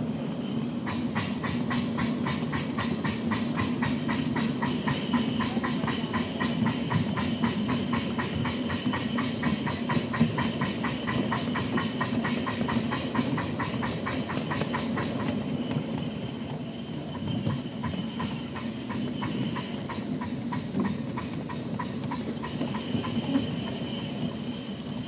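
Miniature live steam locomotive chuffing rapidly and evenly, about five exhaust beats a second, over the steady rumble of the riding cars' wheels on the track. About fifteen seconds in the chuffs fall away to a softer beat.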